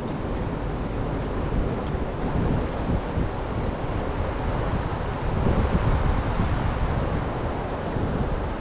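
Steady rush of wind buffeting the microphone over rough water churned by the dam's running generators and lock release.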